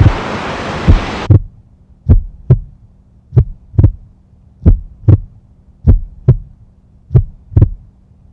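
A slow heartbeat of paired lub-dub thumps, about one pair every 1.3 seconds. A loud rushing noise over it cuts off suddenly about a second in, leaving the heartbeat alone over a faint low hum.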